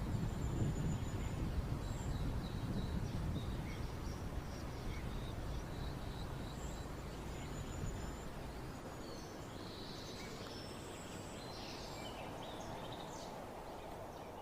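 Small songbirds chirping and calling in short, high notes, busier in the second half. Under them is a low outdoor rumble that fades out about eight seconds in.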